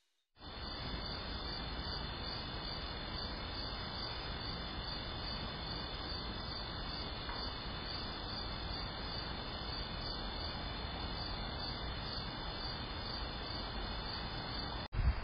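Crickets chirping steadily at night, heard through an outdoor security camera's microphone with a constant hiss. The sound cuts off abruptly near the end.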